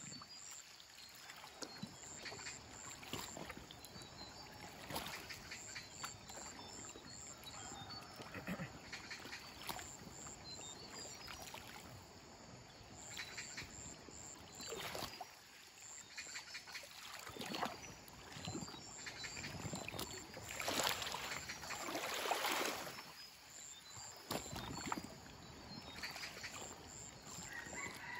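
Bamboo raft being poled across a flooded river: irregular splashes and knocks as the long bamboo pole is pushed into the water, over the steady wash of the current.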